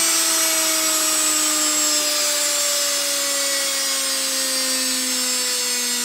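Washing machine universal motor running with its speed set by a 250-watt light dimmer. It gives a steady whine that falls slowly in pitch as the motor slows.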